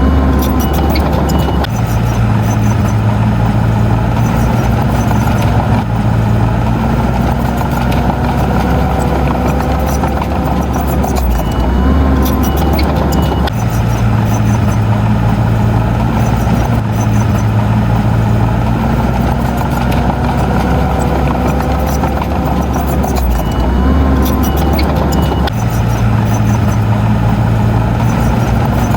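Heavy diesel engine of earthmoving machinery running under load. Its low note shifts between two pitches in a cycle that repeats about every twelve seconds, the way a working bulldozer's engine changes between pushing and backing up.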